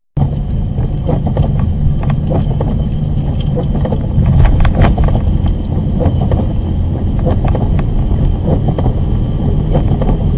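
A vehicle driving through heavy rain, heard from inside: a steady low rumble of road and wind noise with many irregular sharp ticks of rain striking the car.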